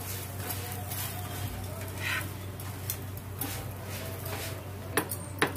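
Oiled aloo paratha sizzling steadily on a hot tawa as it is turned round with metal tongs, with two sharp clicks near the end.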